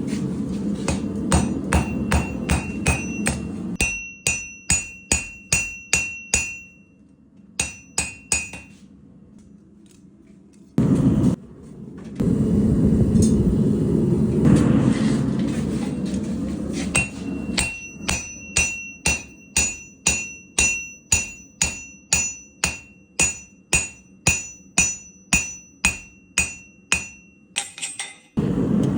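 Hand hammer striking hot damascus steel on an anvil in rapid runs of blows, about three a second, each blow leaving a bright metallic ring. Between the runs there is a steady low roar, and the strikes pause and then resume.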